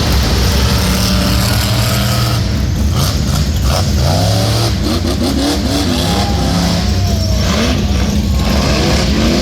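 Rock bouncer race buggy's engine revving hard, its pitch rising and falling several times in quick succession through the second half.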